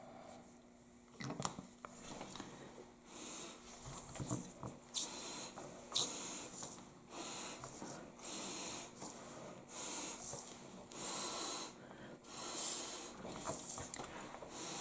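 Short puffs of breath blown through a drinking straw, about one a second, pushing wet black and teal alcohol ink across the sheet into branching tree-limb lines. A couple of light clicks come in the first two seconds.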